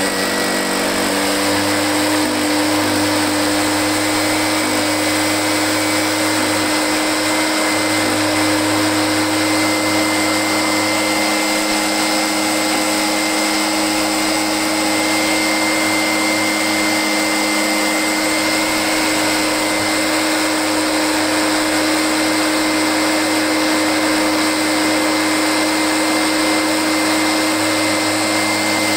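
Echo PB-500H backpack leaf blower's two-stroke engine and fan running at high throttle, holding a steady speed with no dip. It is being run to test for an intermittent bog, which does not show here.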